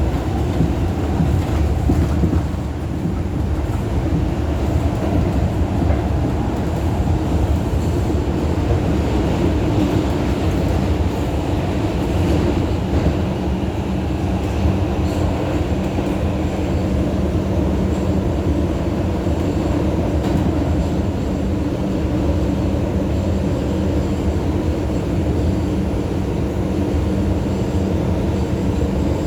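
New York City subway car (2 train) running between stations, heard from inside the car. Its wheels and motors make a steady low noise on the rails, with a few faint clicks about a second or two in.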